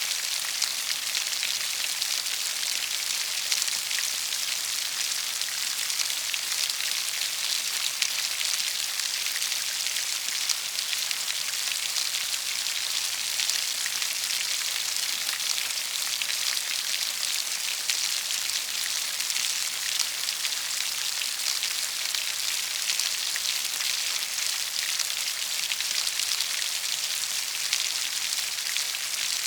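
Steady rain falling: an even, dense patter of drops with a high hiss and no change in strength.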